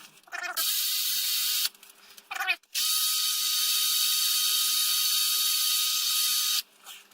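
A power drill spins a small wooden dowel against sandpaper: a steady hissing whine. It cuts out twice, for about a second each time, once early and once near the end, and starts up again in between.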